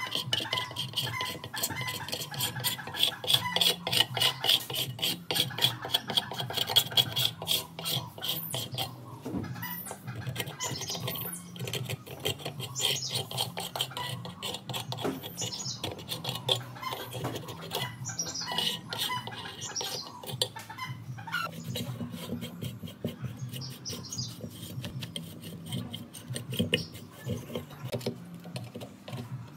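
A screwdriver and a wooden-handled scraper picking and scraping dried surround and glue residue off the rim of a loudspeaker frame: a run of irregular scratchy strokes and small clicks.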